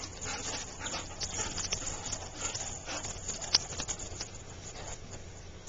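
Two dogs play-fighting: growls and snaps mixed with irregular scuffling of paws on gravel, and a sharp click about three and a half seconds in.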